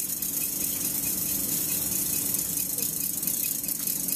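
Wound-up spring mechanism running down with a steady, fast rattle over a low steady hum.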